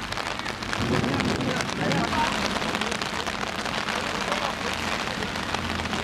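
Steady rain falling, heard as a dense hiss of many small drops, with faint voices about a second in.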